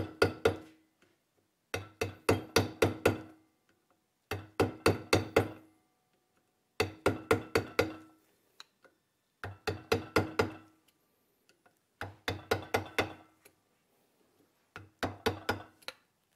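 Hammer tapping a thin screwdriver against the crimped steel lip of a Mercedes X164 driveshaft joint's dust cap to pry it open, in quick bursts of about five or six light strikes, a burst every two and a half seconds or so. The strikes ring with a pitched metallic tone.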